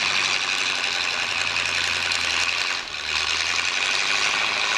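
Steam donkey engine running as it hauls a log up on its cable line, with a steady hiss and a low hum that comes in about a second in and stops just under four seconds in; a logging truck's engine idles alongside.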